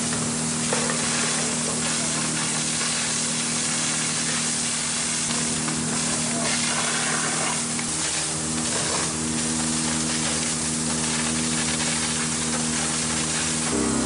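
Fire hose jets spraying water, heard as a steady hiss, with a steady low hum underneath.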